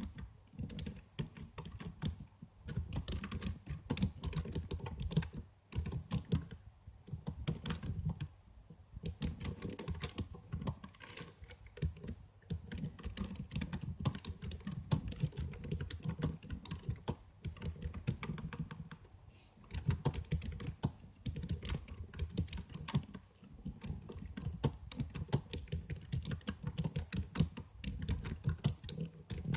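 Typing on a computer keyboard: fast runs of key clicks lasting a few seconds each, broken by short pauses.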